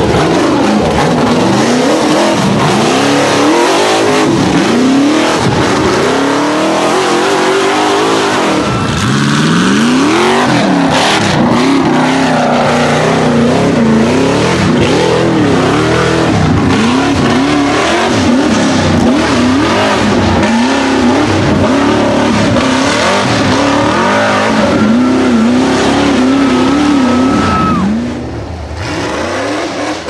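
Rock bouncer buggy engines revving hard, the pitch rising and falling again and again as the buggies claw up a steep rocky hill. The sound drops in level near the end.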